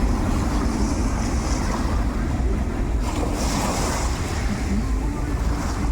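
Sea noise with wind buffeting the microphone: a steady low rumble, with a brief rush of higher hiss about three seconds in.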